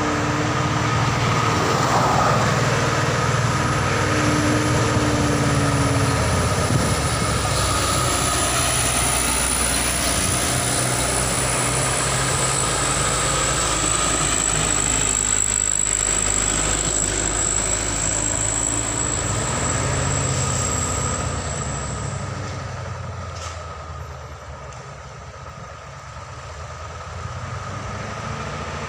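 Heavy truck engine labouring up a steep climb, mixed with the road noise of cars passing. The rumble falls away for a few seconds near the end, then builds again.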